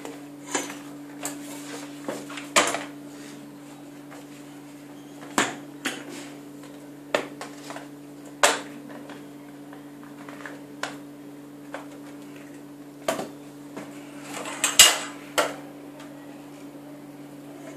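Parts of a baby high chair knocking and clattering as they are handled and fitted: irregular clicks and knocks of the plastic tray and tubular frame, the loudest cluster about 15 seconds in. A steady low hum runs underneath.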